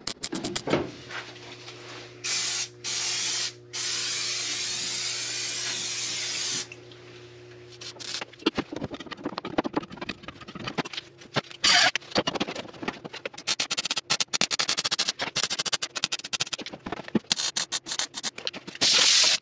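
MIG welder crackling in short stitch-weld runs on the sheet-steel floor-pan seam of a mini truck, with brief pauses between runs. In the first part a low steady hum comes with several seconds of loud hissing that stops and starts.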